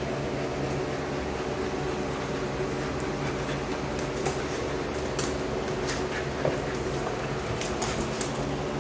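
A steady mechanical hum, with a few faint clicks of dogs' claws and paws on a hard laminate floor as pit bulls wrestle.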